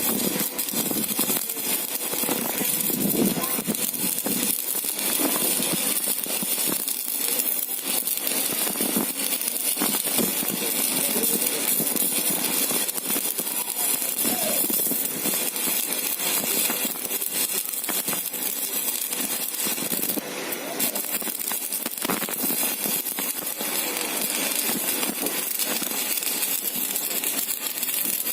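Stick-welding arc crackling and sizzling steadily as a 3.2 mm electrode burns down, fed by a repaired MMA-200 inverter welder under continuous welding load.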